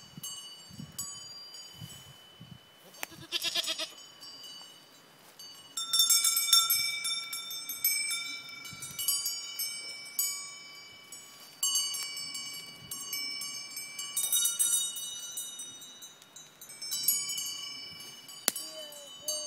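Goats' collar bells ringing irregularly as the goats move and feed, struck again and again, loudest about six seconds in. A goat bleats briefly about three seconds in.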